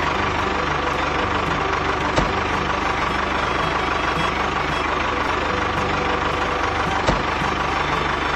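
Homemade mini tractor's motor running steadily, with two short clicks, one about two seconds in and one near the end.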